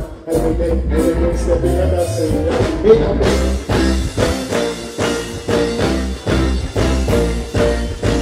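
Loud reggae music playing over a stage sound system, with a heavy bass line. About three seconds in, the music shifts into a steady beat.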